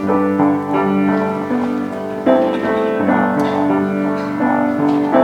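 Keyboard playing a worship song, held chords with a slow melody moving over them, with no voice over it.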